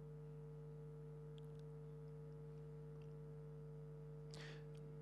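Faint, steady electrical hum with a couple of steady tones, broken by a few light clicks and a brief soft rush of noise about four seconds in.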